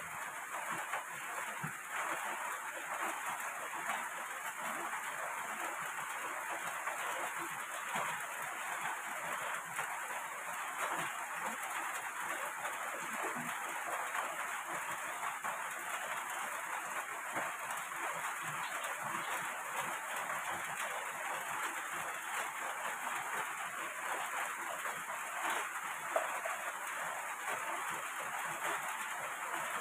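Steady rain, an even hiss that holds without a break, with faint scattered ticks.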